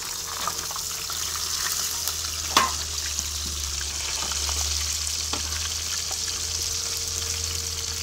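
Masala-coated fish pieces frying in hot oil in a black iron karahi, a steady sizzle. A metal spatula clicks against the pan twice, sharply about two and a half seconds in and more softly about five seconds in.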